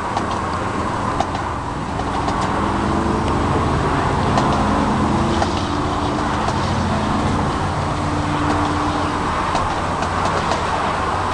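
Distant marching band playing slow, long-held chords that change every second or two, over a steady low rumble.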